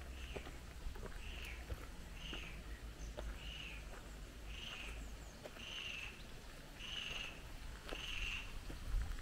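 An animal call: a short, high, rising-and-falling note repeated steadily about once a second, with faint clicks and knocks underneath.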